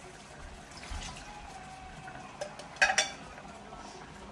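A metal spoon stirring in a cooking pan and knocking against it, with a cluster of sharp clinks about three seconds in and another at the very end.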